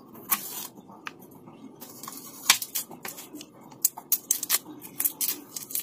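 Garlic cloves being trimmed with a small kitchen knife and peeled by hand: irregular crisp crackles and clicks of papery skin and blade, over a steady low background noise.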